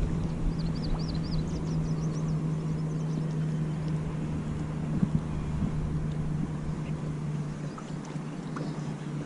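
Small electric trolling motor on a boat humming steadily, cutting out near the end, over wind rumble on the microphone. A few short bird chirps come near the start.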